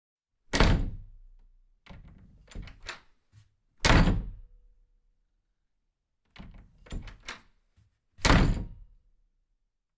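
Three heavy thumps about four seconds apart, each dying away over about a second, with clusters of lighter knocks between them.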